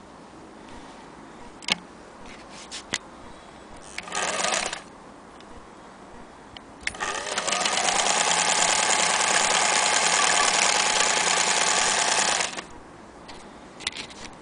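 Singer Featherweight 222K electric sewing machine stitching through thick leather: a short burst of stitching about four seconds in, then a longer run of about five seconds in which the motor whine rises and holds steady before stopping abruptly. A few sharp clicks from handling the machine and the work come before and after.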